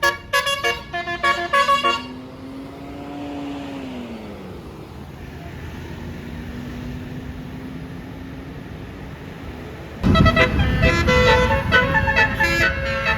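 Bus telolet multi-tone air horn (Basuri horn) playing a quick melody of short notes, which stops about two seconds in. A quieter stretch follows in which a vehicle engine drones, rising and falling in pitch. About ten seconds in, the horn melody starts again, loud.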